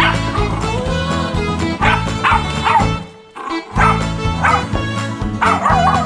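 Irish Terrier puppy yapping and barking in short repeated bursts at a remote control toy truck, over background music. The sound cuts out briefly about halfway through.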